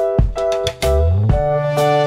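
Background music: held chords over drum hits, with a low bass line coming in about a second in.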